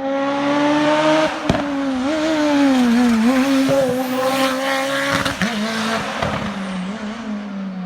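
Hillclimb race car engine at high revs as the car climbs past, its pitch wavering and dipping several times with throttle and gear changes. A sharp crack about a second and a half in.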